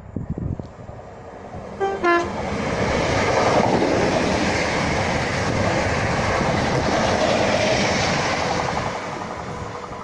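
A train sounds two short horn notes, then passes through the station at speed with a loud, steady rush of wheels on rail that fades near the end.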